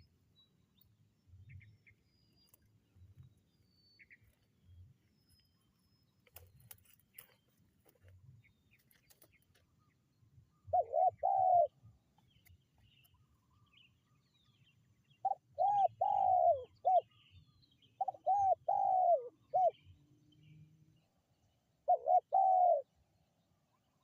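Spotted dove (tekukur) cooing in four short phrases of several notes each, the first about eleven seconds in and the last near the end. Before the first phrase there are only a few faint chirps and soft low thuds.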